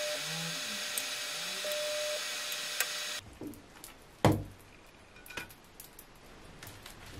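Beaten egg and crab sticks sizzling in oil in a frying pan with a steady hiss. About three seconds in, this gives way to a fainter sizzle with small scrapes and clicks of a spatula, and one sharp knock on the pan soon after.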